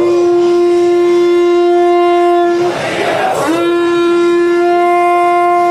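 Conch shell blown in two long, steady notes, each sliding up briefly into pitch as it begins, with a short break about three seconds in.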